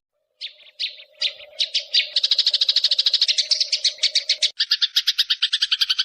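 Songbird song from a bird-mastering track. After a brief silence at the start, it runs in fast, rapidly repeated high chirps and trills. About four and a half seconds in, it changes to a denser, steadier trill.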